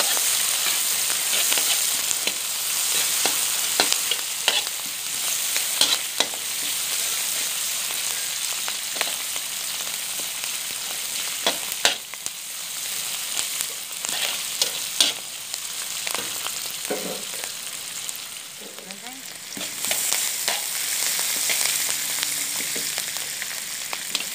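Sliced onions sizzling in hot oil in a metal wok. A slotted metal spatula stirs them and scrapes and clicks against the pan again and again.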